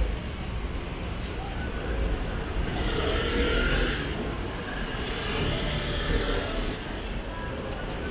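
City street traffic: motor vehicles running nearby over a steady low rumble, swelling a little about three seconds in.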